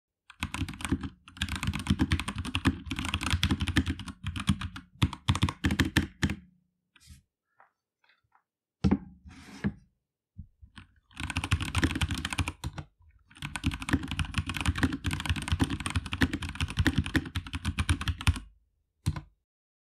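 Fast typing on a Keychron K2 aluminium-frame mechanical keyboard with brown switches: rapid runs of key clacks in two long bursts, with a gap of a few scattered keystrokes between them.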